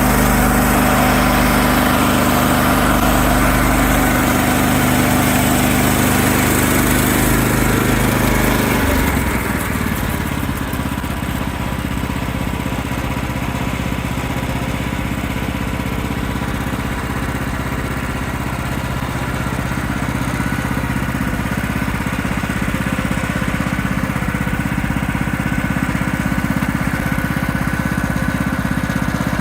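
Gas engine of a Woodland Mills portable band sawmill running fast, then dropping suddenly to a lower, quieter idle about nine seconds in, which is typical of the throttle being eased off at the end of a cut.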